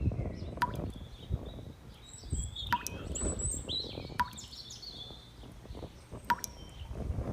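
Birds chirping in short calls over a low rumble, with a sharp click-like plop recurring about every one and a half to two seconds.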